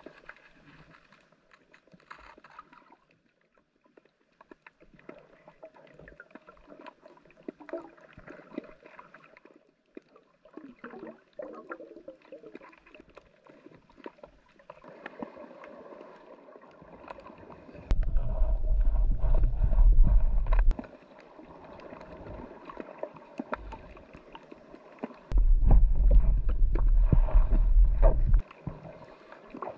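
Underwater sound picked up by a diving camera: faint crackling and gurgling of water around the diver. It is broken twice, about halfway through and again near the end, by a loud low rumble lasting about three seconds that starts and stops abruptly.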